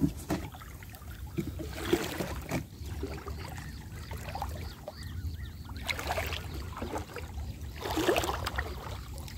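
Water sloshing and swishing around a person's legs as he wades waist-deep, in uneven surges, a few of them louder.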